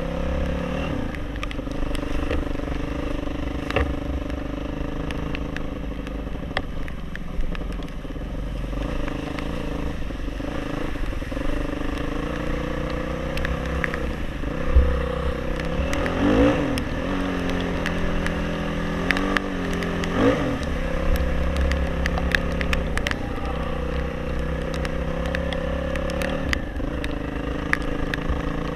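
Motorcycle engine running steadily while riding off-road, its pitch dipping and rising a few times past the middle as the throttle is eased and opened. There are scattered knocks and rattles over a low rumble.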